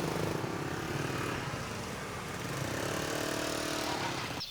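Small motorbike engine running close by, its pitch shifting as the throttle changes.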